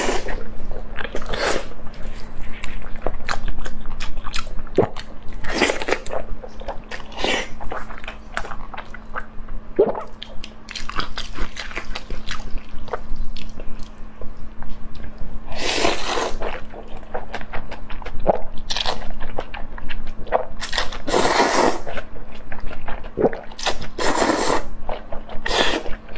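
Close-miked chewing and biting of soft braised beef tendon: wet mouth smacks and clicks. In the second half come several longer slurps of noodles.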